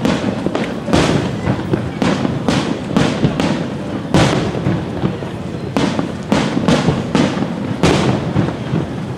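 Daytime fireworks display: aerial shells bursting in quick irregular succession, about two sharp bangs a second, each with a short echoing tail.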